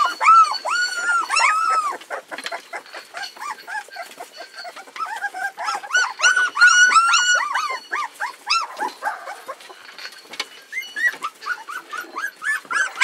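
A litter of three-week-old sled-dog puppies whining and yelping over one another, many short high cries that rise and fall, loudest in the first two seconds and again around six seconds in. They are crying from hunger, wanting to nurse.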